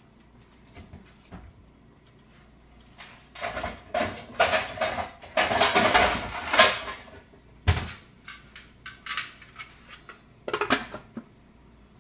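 Metal pot lid clattering as it is handled and set onto a large old metal cooking pot. There is a burst of rattling in the middle, then a sharp knock and a few lighter clinks.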